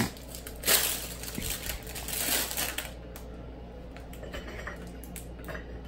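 Plastic bag crinkling and rustling as pancakes are handled and pulled out of it, loudest in the first few seconds, then quieter.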